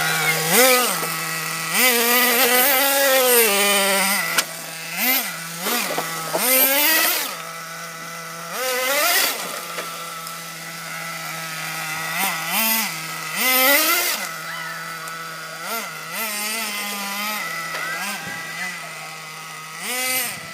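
Small two-stroke petrol engine of a remote-control car idling with a steady hum and being revved again and again, the pitch rising with each throttle blip and dropping back to idle, a few revs held longer for a second or two.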